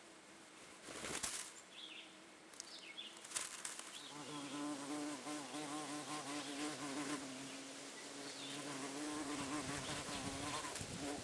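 A fly buzzing close to the microphone from about four seconds in, a steady drone whose pitch wavers. Before that, a couple of loud rustling knocks as an American robin settles onto the nest.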